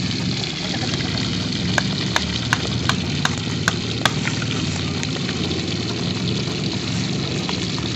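Whole fish frying in hot oil in a wok over a wood fire: a steady sizzle, with a run of sharp pops about two to four seconds in, over a low steady hum.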